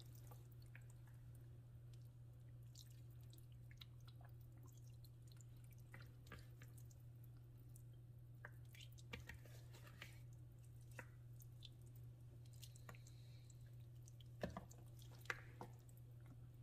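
Faint wet squishes and small clicks of hands rolling curry-seasoned trout pieces in a plastic bowl, a couple slightly louder near the end, over a steady low hum.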